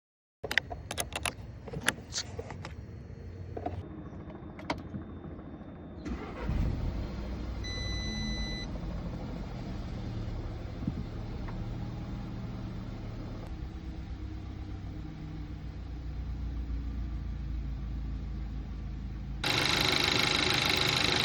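Clicks and knocks, then an Audi/VW EA888 turbocharged four-cylinder engine starting about six seconds in, with a short dashboard chime, and settling into idle, a rough idle put down to a failed PCV valve. Near the end a much louder steady hiss with a high whistle comes in suddenly.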